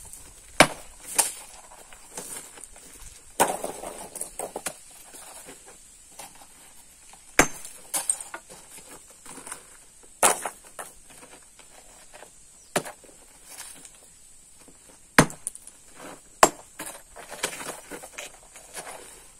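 Hammer striking stone in a quarry: a dozen or so sharp, ringing knocks of metal on rock at uneven intervals, with short pauses between them.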